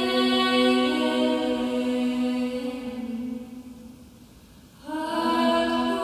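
Female voices singing a traditional Hungarian folksong a cappella, holding long notes. The notes fade away about four seconds in, and the singing comes in again near the end.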